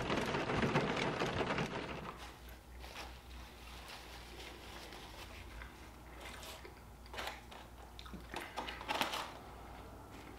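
Rain falling on a car for about the first two seconds, then a quiet room with a few scattered crunches and clicks as fried chicken fingers are handled and eaten from a takeout tray.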